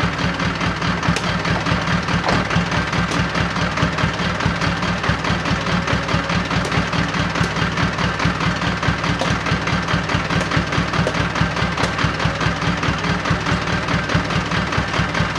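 Diesel truck engine idling steadily, with an even, rapid low pulse.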